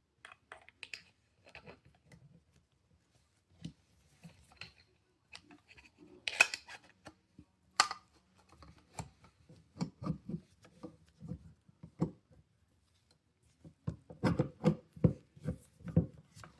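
Clicks, scrapes and light knocks of pistol parts being handled and fitted together during reassembly. There are two sharp clicks about six and eight seconds in, and a run of duller knocks near the end.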